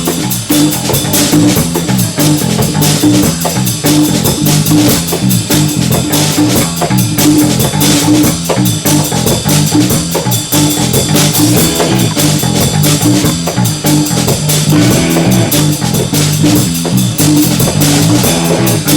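Background music: a jazzy instrumental with guitar, bass and drum kit playing a steady beat.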